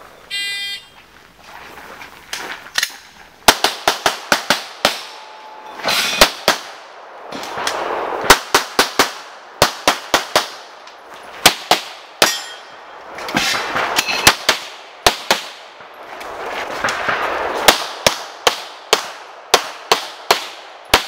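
A shot timer's start beep, then a USPSA pistol stage being shot: strings of pistol shots in rapid pairs and clusters, with short pauses while the shooter moves between positions.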